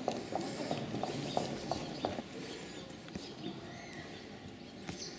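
Footsteps of a walking procession on stone paving: a quick run of steps through the first two seconds, thinning out after. Small birds chirp faintly high above.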